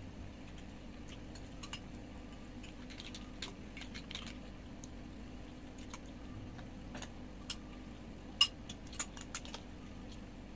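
Scattered light clicks and clinks of chopsticks and tableware against bowls and food containers during a seafood meal, with one sharper clink about eight seconds in, over a low steady hum.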